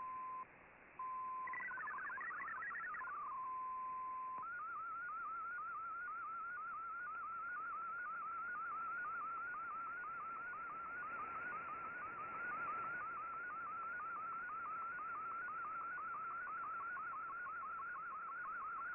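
Shortwave digital-mode broadcast heard through the receiver over steady hiss. A short burst of hopping MFSK data tones and a steady single tone, with a brief dropout under a second in, give way about four seconds in to the fast, evenly repeating warble of an MFSK picture transmission being sent.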